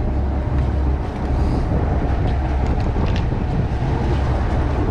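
Steady low engine rumble of a deep-sea fishing charter boat, with wind and water noise over it; a few faint clicks come around the middle.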